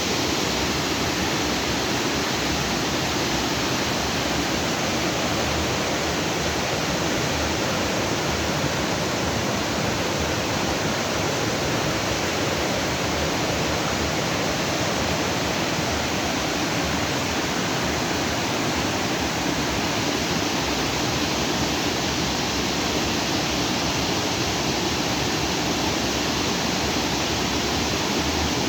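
Stream water rushing steadily over and between rocks, a continuous even rush.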